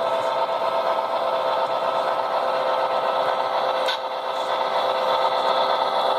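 Model diesel locomotive running along the layout track, a steady mechanical whir and hum with one short click about four seconds in.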